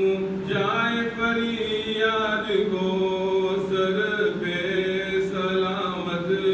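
A man chanting a munajat qasida, a devotional supplication poem, solo in long held notes that waver and glide in pitch.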